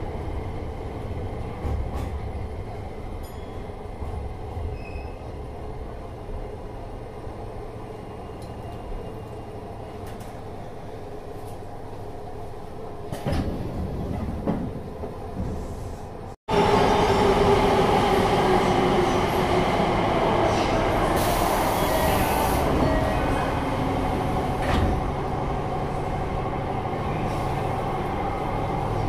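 Running noise heard inside a Tokyo Metro 7000 series subway car: a steady rumble of wheels on rail. About halfway through, the sound cuts abruptly to louder running in which the traction motors' whine falls in pitch over several seconds.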